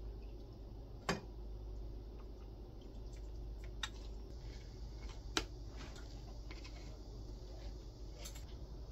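A metal ladle and cooking chopsticks clink against a stainless pot and a glass measuring cup as noodles and soup are ladled across: a few sharp clinks, three of them louder, over a steady low hum.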